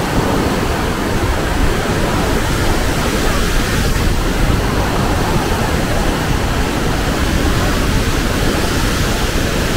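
Loud, steady rush of a raging white-water river in a gorge.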